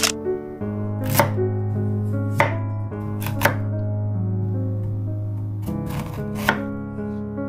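Chef's knife cutting through a Korean zucchini and striking a bamboo cutting board: about six sharp knocks at uneven intervals, two of them close together near the middle and two more near the end, over steady background music. A camera-shutter click comes right at the start.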